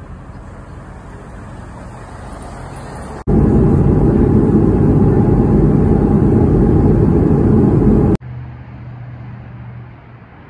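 Jet airliner cabin noise in flight: a loud, steady rush of engines and airflow with a low rumble. It cuts in abruptly about three seconds in and stops just as abruptly about five seconds later. It comes between quieter stretches of steady street and outdoor ambience.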